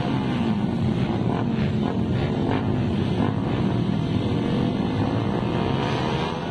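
Several small scooter and motorcycle engines idling and blipping their throttles together, their pitch rising and falling over a steady engine drone.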